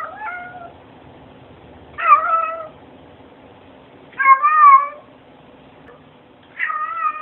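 Domestic cat meowing four times, short calls about two seconds apart, each wavering in pitch.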